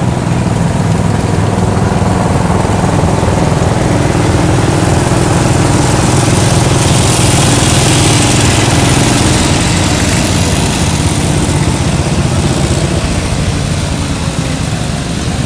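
Small garden tractor engine idling steadily, a low even running note with a hiss that swells and fades a little in the middle.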